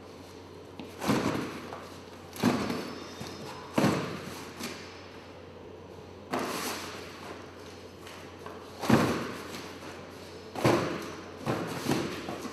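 Cardboard cartons thudding as they are set down on a tiled floor and against each other, about eight dull thuds at uneven intervals over a faint steady hum.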